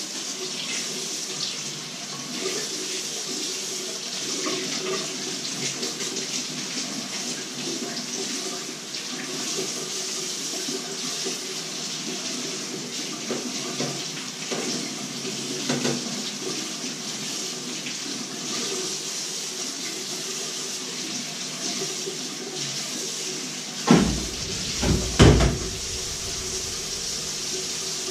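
Kitchen tap running steadily into a sink while things are rinsed under it by hand. About three quarters of the way through, three loud knocks of something hitting the sink.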